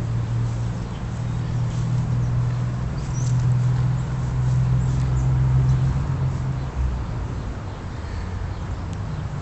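A steady low hum that swells and eases slightly, with a few brief faint high squeaks about three seconds in.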